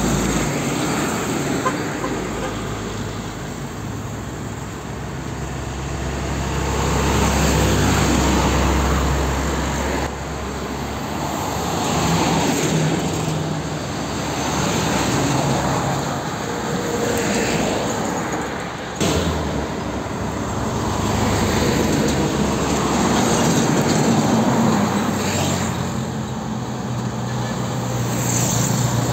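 Heavy diesel trucks passing one after another on a road: engines running and tyre noise swelling and fading as each goes by, with two abrupt changes in the sound.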